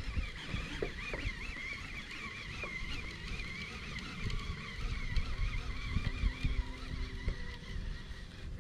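Baitcasting reel being cranked to bring in a largemouth bass hooked on a spinner, with a wavering high whine throughout. Wind rumbles on the microphone underneath.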